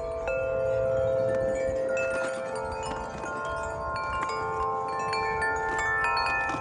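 Several metal wind chimes ringing in the wind, many long-sustaining notes struck at different moments and overlapping, with a low rumble of wind underneath.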